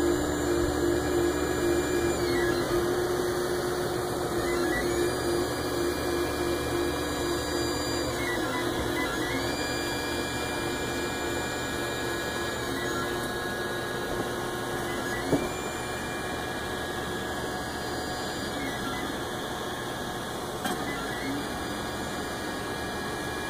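ORD Bot 3D printer printing, its stepper motors whining in steady tones that jump to new pitches every couple of seconds as the head and bed change moves. One sharp click about two-thirds of the way in.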